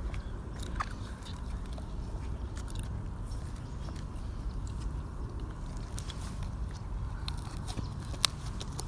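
Slime being scratched and squished close to the microphone: scattered small sticky clicks and crackles over a steady low background, with a sharper click near the end.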